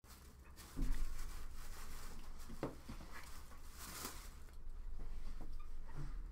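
Rustling, scratching and light knocks as kittens are picked up and set down on a glass desk, with a dull thump about a second in and another near the end, over a low steady hum.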